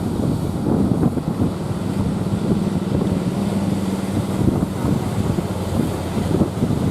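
Wind buffeting the microphone over the low, continuous rumble of heavy surf. A faint steady hum joins in about two seconds in and fades out near the end.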